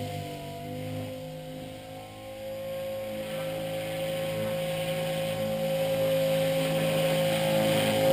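Blade 450X electric RC helicopter's motor and rotor whine, one steady pitch, faintest about two seconds in while it is high overhead, then growing steadily louder as it descends toward the ground.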